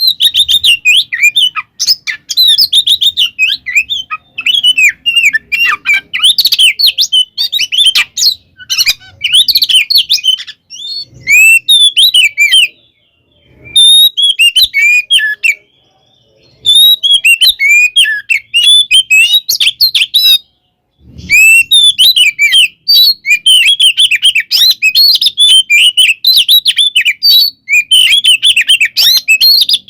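Oriental magpie-robin (kacer) singing a loud, fast, varied song of whistled and chattering notes, with brief pauses about a third, half and two-thirds of the way through.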